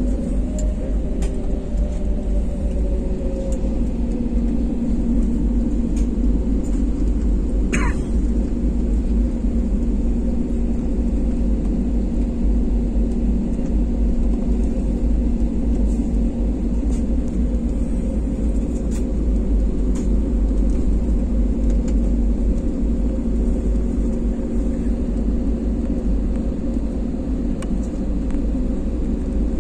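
Jet airliner cabin noise while taxiing: the engines hum steadily at low power over a continuous low rumble. A short falling squeak is heard about eight seconds in.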